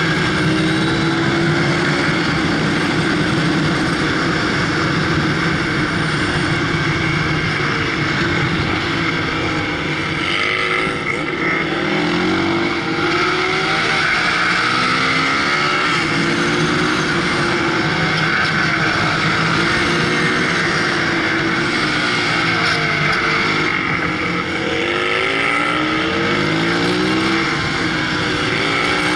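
Onboard sound of a 250 cc supermoto motorcycle engine being ridden hard, its pitch rising and falling over and over as it revs out and shifts through corners, under a steady rush of wind on the microphone.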